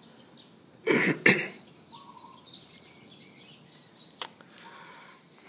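A man coughs close to the microphone, one short loud cough in two quick parts about a second in.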